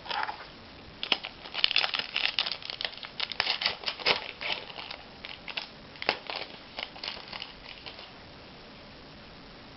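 A trading card pack wrapper being torn open and crinkled, a dense run of crackling starting about a second in and stopping about two seconds before the end.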